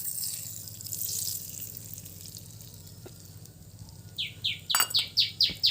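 Hot mustard oil sizzling as it meets the mango pickle, a hiss that fades over about two seconds. About four seconds in, a bird starts a rapid run of short falling chirps, about four a second.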